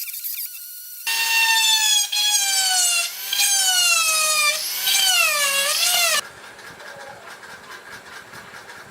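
Homemade mini lathe's small electric motor running with a high whine whose pitch sags and rises. It starts about a second in and cuts off abruptly about six seconds in, leaving a faint hiss.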